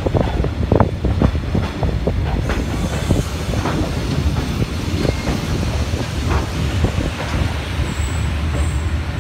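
Passenger train coach running on the rails: a steady low rumble with irregular clicks and knocks from the wheels.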